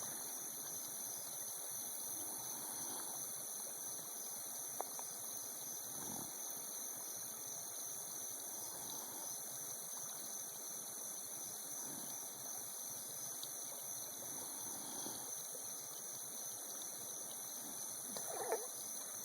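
A miniature palomino stallion snoring softly in his sleep, with a slow, soft breath about every three seconds. A brief louder noise comes near the end.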